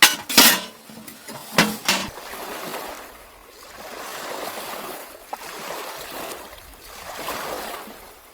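Metal cookware clinking a few times, then a soft rushing noise that swells and fades in slow waves.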